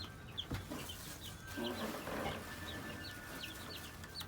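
Sapphire Gem chicks peeping: short, high cheeps, several a second.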